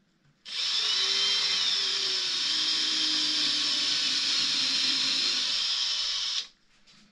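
Cordless rotary tool with a small milling bit running at reduced speed, grinding into cured epoxy resin to open out a bubble defect. It starts about half a second in, runs steadily for about six seconds, and stops abruptly.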